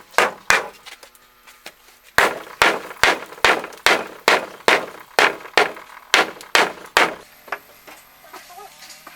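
Repeated sharp blows of a hand tool striking something hard, about two to three a second. They come in two runs with a pause of over a second between, and stop about seven seconds in.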